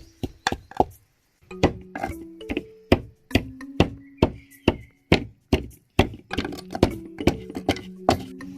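Stone pounding plant material in a coconut-bough mortar: repeated knocks, about two to three a second, with a short break about a second in, over background music.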